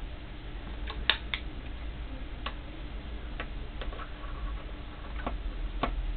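Irregular light clicks and taps from soldering tools and a small circuit board being handled, about ten over a few seconds, with a cluster of three near the start. A steady low hum runs underneath.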